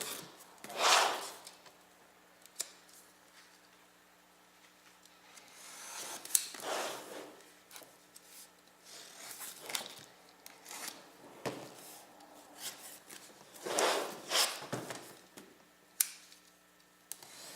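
A cardboard power-supply box being cut open and unpacked by hand: several rasping swipes a few seconds apart, with small clicks and taps between them.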